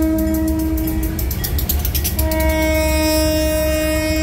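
Locomotive air horn, a Leslie RS-3L on the lead C40-8, blowing two blasts: the first ends about a second in, the second starts about two seconds in and is held. The low rumble of the train's diesel engines runs beneath.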